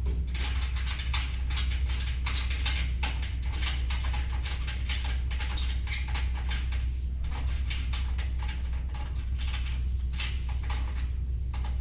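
Rapid irregular clicks, rattles and scraping of metal parts being handled as a woodworking saw's angle fence and stops are adjusted, over a steady low hum.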